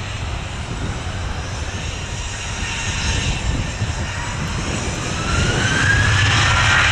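Boeing 737 business jet's twin jet engines rumbling and whining as the aircraft rolls along the runway. About five seconds in, a whine rises in pitch and the engines grow louder as they spool up to higher thrust.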